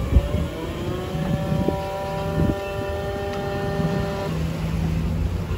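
Electric yacht winch running under load: a motor whine that rises as it spins up, holds steady, and stops about four seconds in. Behind it are wind and sea noise and a low steady hum.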